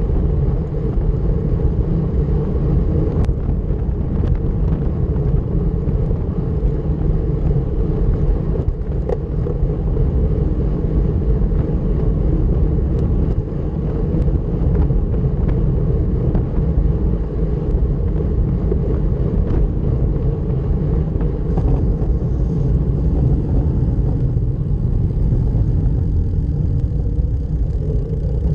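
Steady rumble of wind over the microphone and tyre noise from a road bicycle ridden at time-trial speed, with a few faint ticks.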